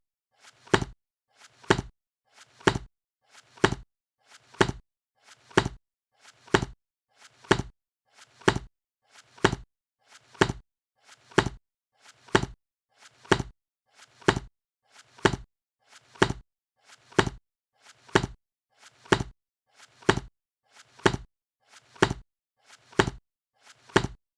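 A book being shut over and over, about once a second, each closing a brief soft lead-in followed by a sharp clap.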